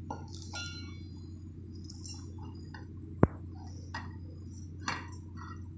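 Dry whole spices (cumin seeds, black peppercorns and cinnamon pieces) being tipped from a plate into a stainless steel mixer-grinder jar, with light scattered rattling of seeds on metal and one sharp clink about three seconds in, over a steady low hum.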